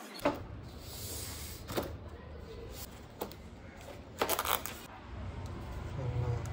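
Several sharp knocks and clatters, with a short burst of rapid taps about four seconds in, over a low rumble that grows louder near the end.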